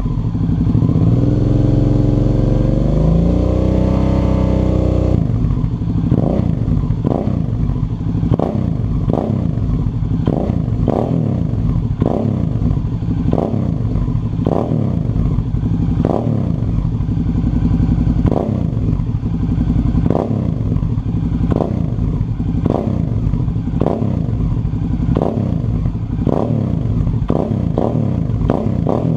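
Suzuki V-Strom 650 V-twin motorcycle engine revving through an aftermarket Two Brothers Racing Black Series carbon-fibre exhaust. It rises in pitch over the first few seconds, then changes suddenly to short, repeated throttle blips, about one a second, each dropping back toward idle.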